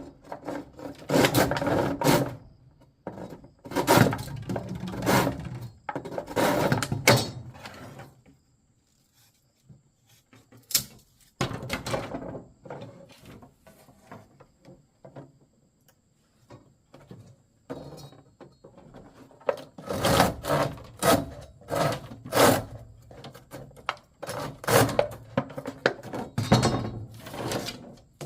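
Irregular wooden knocks and scraping from things being handled, coming in clusters with a quiet stretch of a few seconds a little before the middle.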